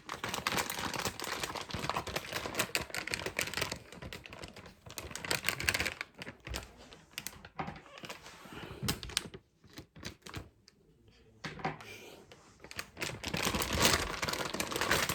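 Graphics card packaging being handled: runs of quick light clicks and rustles, with a quieter stretch in the middle.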